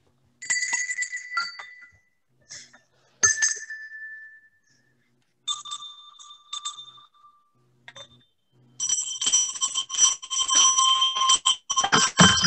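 Small Christmas bells being rung: first single bells one after another, each ringing briefly at its own pitch, then from about nine seconds in many bells ringing together.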